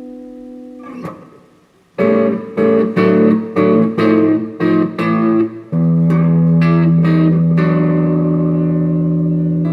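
Overdriven electric guitar, a Gibson Les Paul Custom through a Bugera V5 valve amp on a crunch setting. A held chord dies away and a brief pick scrape follows; then comes a run of short, stabbed chords, and last a chord left to ring out.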